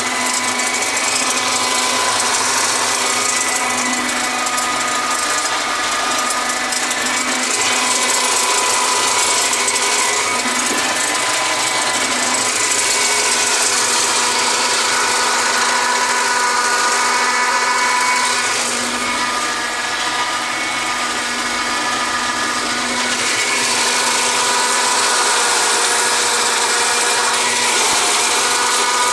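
Tractor and PTO-driven Hayes 2.4 m flail mower with Y-blade flails running steadily while cutting thick, reedy wetland grass: a continuous mechanical drone with a steady pitched hum.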